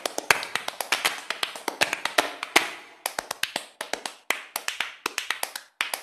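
Background music in a percussion-only passage: quick, sharp hand claps and taps, several a second, with no melody or bass.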